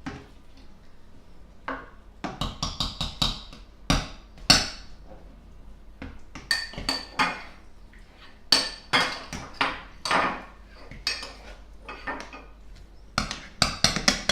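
Spoon stirring a pot of sausage casserole, knocking and scraping against the pot in irregular runs of sharp clinks.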